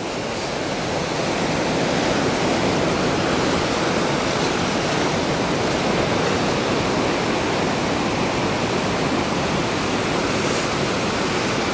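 Ocean surf washing onto a sand beach: a steady rushing noise that swells a little over the first couple of seconds and then holds level.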